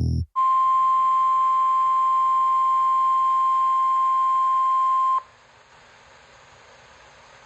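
Emergency Alert System attention signal: the single steady tone of about 1 kHz used by NOAA Weather Radio for warnings, held for about five seconds and then cutting off suddenly, leaving a faint steady hiss.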